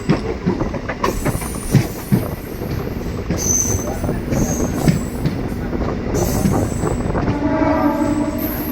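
DEMU express train running, heard from on board: wheels knocking irregularly over rail joints above a steady rumble, with thin high wheel squeals. About seven seconds in, a steady horn starts and runs on.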